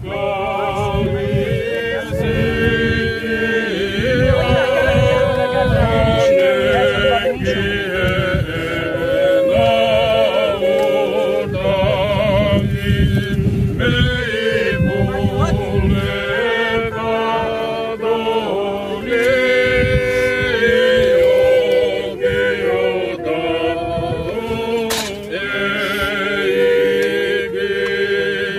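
A group of voices singing unaccompanied in several-part harmony, with long held notes and vibrato, typical of a hymn sung by mourners at a graveside.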